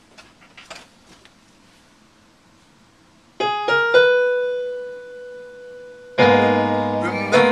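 Keyboard played with a piano sound. A few notes are struck about three seconds in, one of them ringing on and slowly fading. About six seconds in, full chords begin the song's accompaniment.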